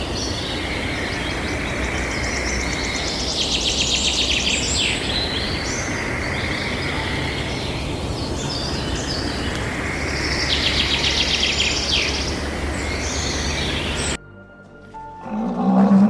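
A songbird singing over steady outdoor background noise: two rapid high trills, about four and eleven seconds in, with shorter chirps around them. The recording cuts off about two seconds before the end, and a low animal call begins just before the end.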